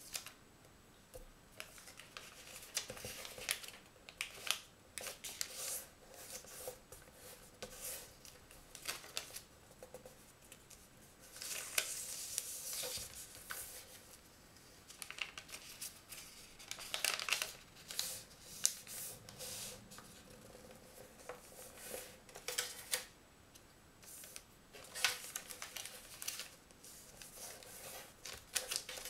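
A sheet of origami paper being folded and creased by hand on a tabletop. It makes irregular crisp rustles and short crackles as the paper is turned, folded and pressed flat, with a denser stretch of rustling about twelve seconds in.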